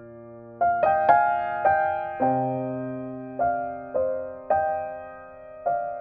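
Soft background piano music: slow notes and chords, each struck and fading away.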